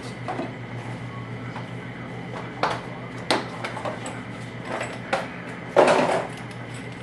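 Scattered clinks and knocks of metal hand tools being handled, with a louder clunk about six seconds in, over a steady low hum.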